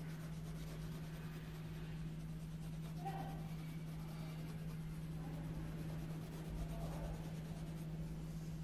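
A steady low hum with faint scratchy rustling over it.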